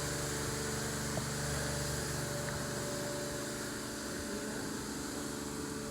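Steady mechanical hum with several constant tones, like an idling engine or running machinery, unchanging throughout.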